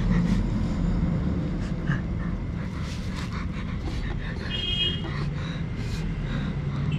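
A man groaning and breathing hard in pain from his hand, with low muffled moans coming and going over a steady low rumble.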